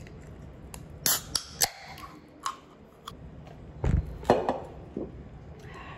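Mini Coca-Cola aluminium can being opened: a sharp crack of the pull tab about a second in with a brief fizz, then a few small clicks. A heavier low knock and a click follow around four seconds in.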